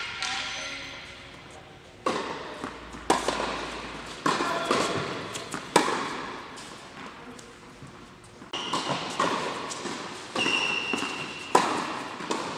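Tennis balls being struck and bouncing in an echoing indoor tennis hall: sharp knocks at uneven spacing, roughly one every second or so, each followed by hall reverberation.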